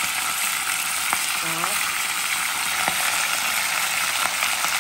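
Raw meat chunks frying in very hot oil in a cast-iron pot: a steady, loud sizzle with a couple of sharp pops. The meat was not patted dry, so its moisture makes it sizzle and spit.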